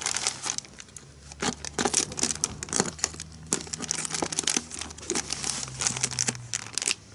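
Black plastic courier mailer bag crinkling and crackling in irregular bursts as hands pull at its cut-open flap.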